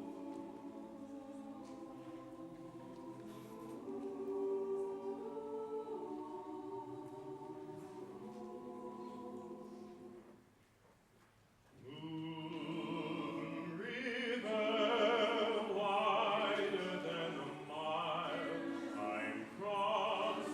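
A cappella vocal group singing: soft held chords for about ten seconds, a brief pause, then a louder passage with a lead voice over the group.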